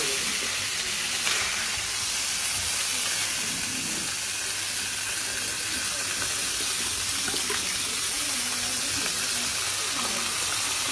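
Steady hissing sizzle of fish frying in coconut oil and ghee on a hot flat tawa griddle.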